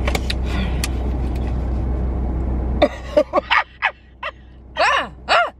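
Steady rumble and hiss of a car's cabin noise that cuts off suddenly about halfway through, followed by a woman laughing in a string of short, wheezy bursts.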